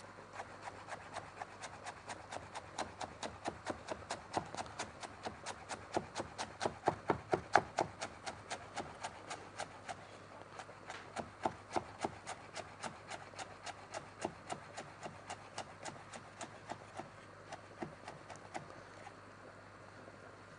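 Chef's knife finely dicing a red onion on a wooden cutting board: a steady run of quick knocks of the blade on the board, about four to five a second, loudest about seven seconds in.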